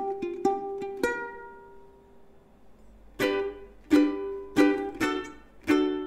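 Waterman by Kala plastic ukulele strummed in chords, processed with compressor and reverb. The chords ring out and fade into a lull of about two seconds, then the strumming resumes about three seconds in.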